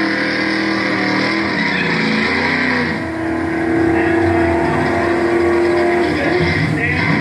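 Small-block V8 in a 1970 Chevrolet pickup drag racer, running hard as the truck launches down the drag strip. Its pitch holds steady for several seconds, then dips briefly near the end.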